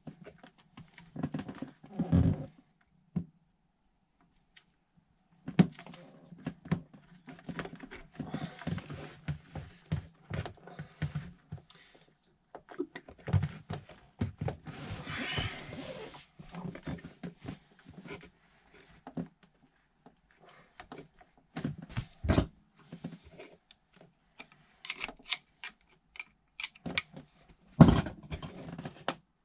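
Intermittent clicks, knocks and scraping of hands and tools working on an engine in a small space, with a few sharper thumps about two seconds in, about twenty-two seconds in and near the end.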